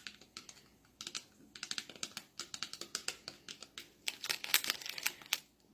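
Rapid, crisp mouth clicks close to the microphone, coming in quick runs that sound like typing on a keyboard, growing denser and louder from about four seconds in.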